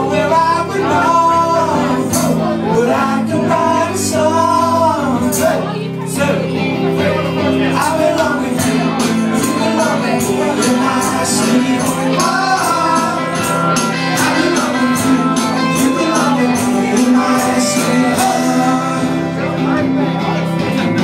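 Live band playing a song with a man singing into a microphone, amplified music with a steady beat throughout.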